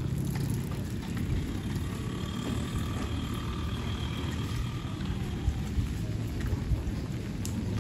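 Rain falling on a wet village street, an even patter with scattered drips, over a steady low rumble. A few sharper taps stand out in the second half.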